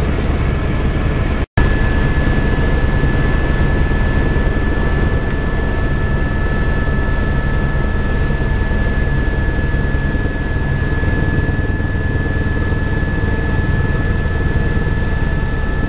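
Helicopter in flight: steady, loud engine and rotor noise with a thin, steady high whine over it, broken by a split-second gap about a second and a half in.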